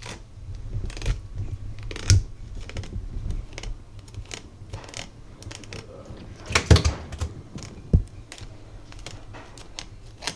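Fillet knife cutting a bluegill along its rib bones: a run of irregular sharp clicks and knocks, the loudest cluster about two-thirds of the way through.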